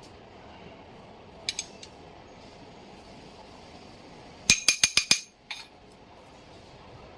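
Metal tools or engine parts clinking against each other: a couple of light clinks about a second and a half in, then a quick run of about five sharp, ringing clinks a little past the middle.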